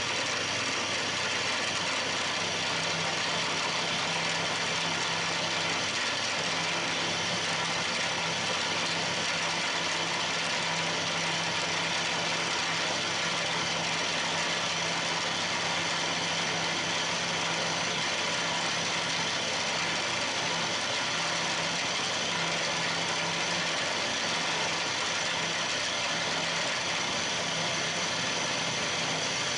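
Milling machine spindle running flat out at 1600 rpm with a 12 mm high-helix solid carbide end mill, face-milling the valve seat face of a model engine's cylinder. It is a steady, unchanging machining sound.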